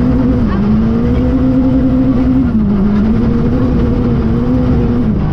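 Renault Clio III RS rally car's 2.0-litre four-cylinder engine, heard from inside the cabin, driven hard on a gravel stage. The revs climb and drop sharply about half a second and two and a half seconds in, as with upshifts, and fall again near the end, all over a steady rush of tyre and gravel noise.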